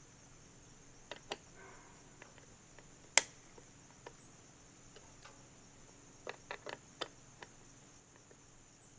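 Scattered clicks and taps of a screwdriver and screw on a metal light mounting plate as the screw is driven in. One sharp click comes about three seconds in, and a quick run of taps comes around six and a half to seven and a half seconds, over a steady faint high hiss.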